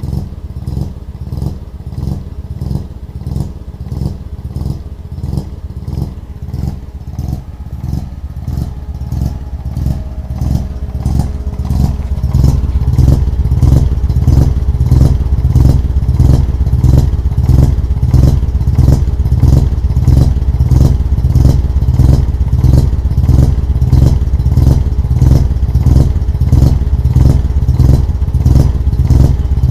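Mazda RX-2's rotary engine running steadily, its exhaust note pulsing in an even, lumpy rhythm through a large aftermarket muffler. From about twelve seconds in it is heard close at the tailpipe and is much louder.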